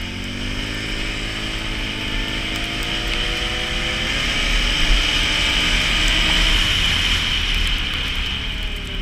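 Can-Am Renegade 570 ATV's V-twin engine accelerating, its pitch rising over the first few seconds, then running at speed with wind and tyre noise, easing off near the end.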